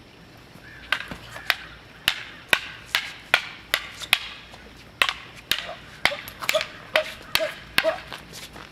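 Wooden sticks clacking against each other in a stick fight: a quick run of sharp knocks, about two to three a second, with a short break about halfway through.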